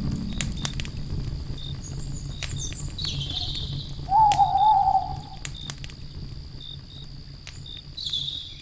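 Wood fire crackling with scattered sharp pops over a low rumble that eases after about five seconds. Behind it crickets trill steadily, a wavering bird call sounds about four seconds in, and shorter high chirps come about three seconds in and near the end.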